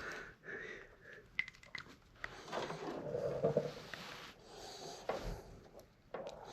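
Faint handling noises: a sharp click, then scattered light ticks and short scrapes and rustles as a mixture-cable casing is handled and positioned.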